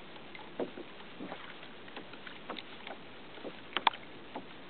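Small knocks and splashes of water against a kayak's hull over a steady hiss, with two sharper knocks close together near the end.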